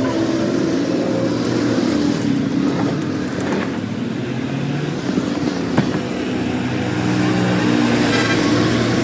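Road vehicle engines running steadily with traffic noise, with one sharp knock a little before six seconds in.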